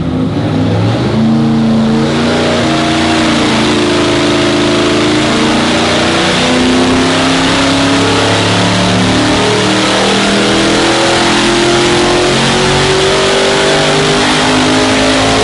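A 440 Mopar big-block V8 stroked to 512 cubic inches, making a full-throttle pull under load on an engine dyno. Its note climbs steadily in pitch as the revs rise through the pull, then starts to fall right at the end.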